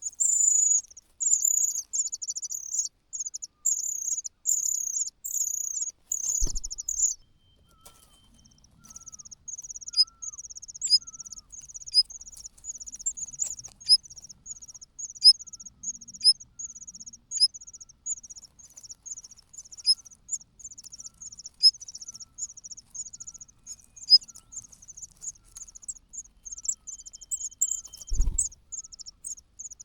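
Cuckoo chick begging from hunger: a rapid, high-pitched, insect-like stream of calls, loud in repeated bursts for the first several seconds, then after a short pause running on as a steady, softer chatter. A dull thump about six seconds in and another near the end.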